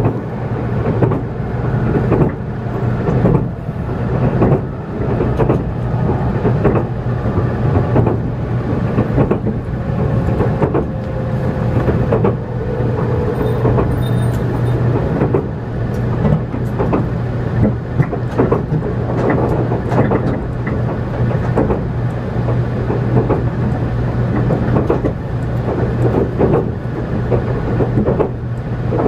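Running noise inside the cabin of a JR Kyushu 783 series limited express electric train at speed: a steady low hum and rumble of wheels and running gear, with frequent clacks as the wheels pass over rail joints.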